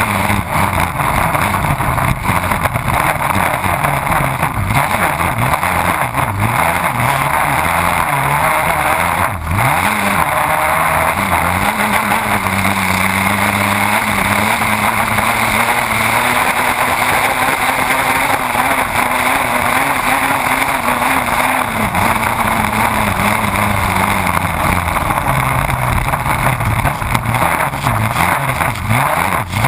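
Race boat's engine running hard at speed, heard onboard under the loud rush of spray and wind over the boat. The engine note wavers, climbs and holds steady through the middle, then drops back about two-thirds of the way through.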